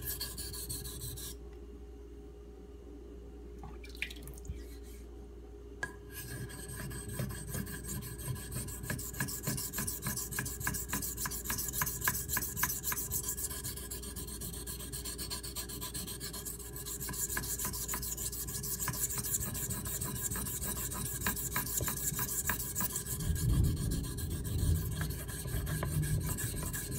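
Knife blade in CPM 3V steel stroked back and forth on a Shapton Pro sharpening stone: a steady run of scraping strokes. The strokes pause briefly about two seconds in, with a couple of light clicks, and resume about six seconds in. Near the end a low rumble of distant thunder comes in under the strokes.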